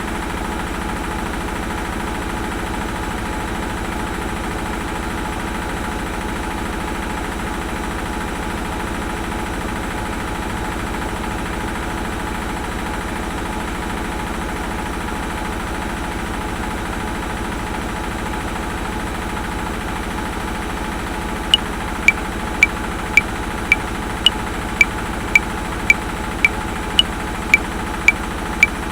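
Washing machine running with a steady, even drone. About three-quarters of the way through, a metronome comes in ticking at 110 beats a minute, with every fifth click accented for 5/4 time.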